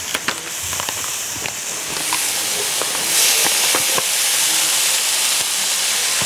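Beyond Beef plant-based ground meat sizzling as it goes into hot olive oil with onion and tomato in a skillet, with a crackle here and there. The sizzle swells into a loud hiss about three seconds in.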